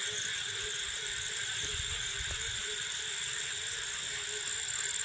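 Night chorus of insects and frogs: crickets trilling steadily on high notes, with a lower pulsing frog call beneath.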